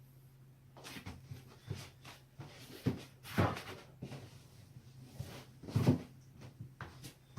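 A person's joints being cracked: a run of separate sharp pops and cracks, the loudest about three and a half and six seconds in, over a low steady hum.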